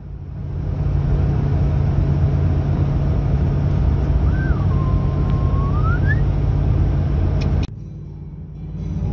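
Steady road and engine noise inside a moving vehicle's cab. About halfway through there is a brief whistle-like tone that dips and then rises. Near the end the noise drops suddenly to a quieter hum.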